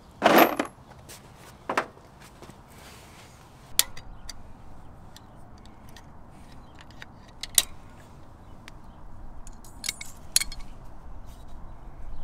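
Metal brake hardware and hand tools clinking as they are handled: a loud clatter near the start, a shorter one about two seconds in, then sharp single metallic clicks every few seconds.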